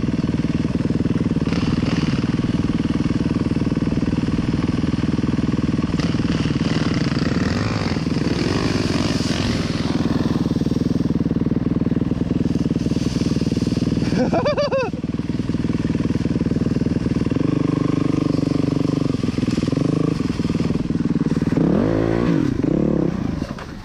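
Yamaha WR450F dirt bike's single-cylinder four-stroke engine running on the move, its note rising and falling with the throttle. There are quick revs about two-thirds of the way through and again near the end, where it eases off.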